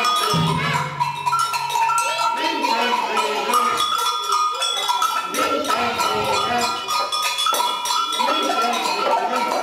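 Young children playing small samba percussion instruments all at once: a dense, irregular jumble of taps and clicks with metal bells ringing over it, without a steady common beat.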